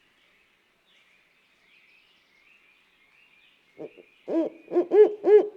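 Owl hooting: a quick run of about five hoots starting near the end, over faint high chirping in the background.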